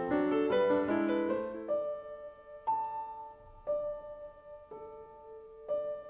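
Soft background piano music: a quick run of notes, then single notes struck about once a second, each left to ring out.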